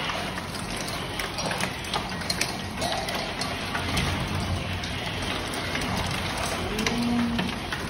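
Heavy downpour heard from behind a window: a steady rain hiss with frequent small ticks of drops striking the glass.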